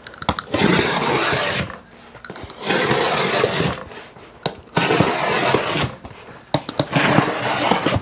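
A tool scraping along a large sheet of stiff brown paper, and the paper rustling as it is creased and bent, in four long rasping strokes.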